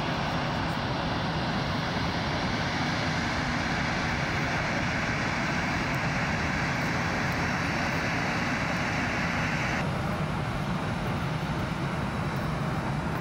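Jet engines of an Airbus A319 airliner running at taxi power, a steady whine and rush. The higher-pitched part of the sound drops away suddenly near the end.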